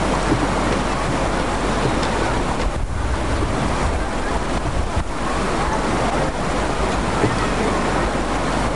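Steady rush of a fast mountain river flowing over rocks, with a brief slight dip in level about three seconds in and again near the middle.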